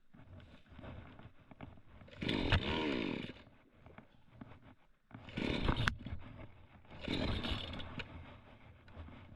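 Getell chainsaw revved in three bursts of about a second each, its pitch rising and falling, dropping back to a low idle between them.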